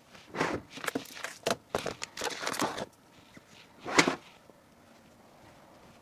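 A file folder being handled and packed into a box: a run of short rustles and light taps for about three seconds, then one short swish about four seconds in.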